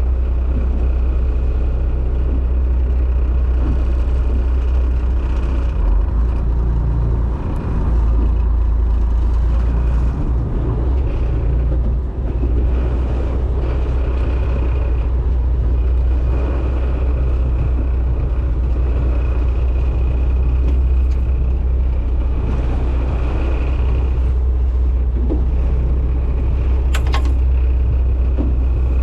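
Fishing boat's engine running with a steady low rumble and a faint steady whine above it.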